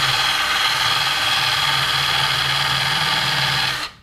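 Cordless drill spinning a small sanding drum against the wood inside a Stratocaster body's horn cutaway, sanding out old paint. It runs steadily, then stops suddenly near the end.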